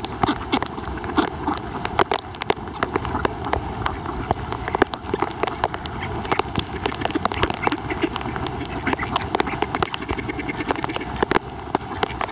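A flock of mallards quacking, with many sharp clicks and a steady hiss of rain throughout.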